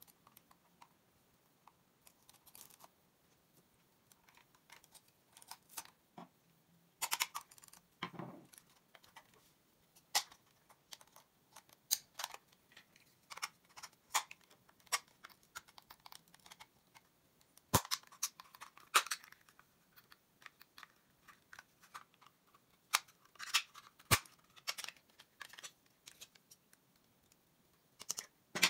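Irregular small plastic clicks, snaps and scraping as the shell of a Bloody A9 gaming mouse is pried and pulled apart by hand with a screwdriver, with a few sharp snaps standing out.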